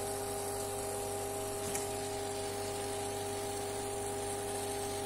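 Videojet continuous inkjet printer's ink system running during jet start-up: a steady hum made of a few constant pitched tones, with one faint click about two seconds in.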